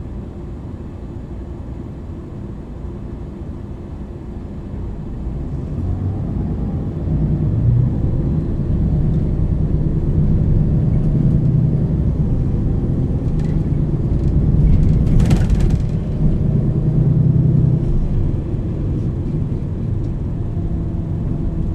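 MAN NL 323 city bus's diesel engine pulling through its ZF EcoLife automatic gearbox, heard from inside the bus: a low rumble that grows louder about five to eight seconds in as the bus accelerates, then stays loud. A brief hiss cuts through about fifteen seconds in.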